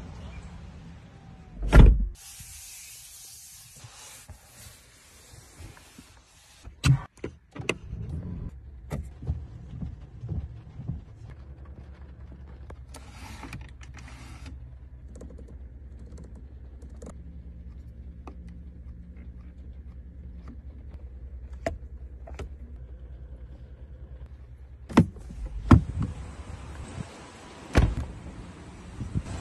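Rolls-Royce Cullinan controls and doors being worked: a heavy thump about two seconds in, a string of sharp clicks from buttons and switches, a steady low hum through the middle, and several thumps near the end as the door handle is worked.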